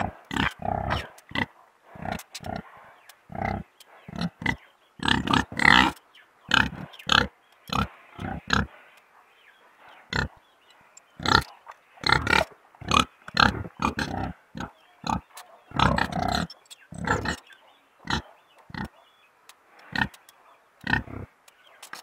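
Domestic pigs grunting in short, irregular bursts, thick and fast for most of the time with a brief lull in the middle, and more spaced out near the end.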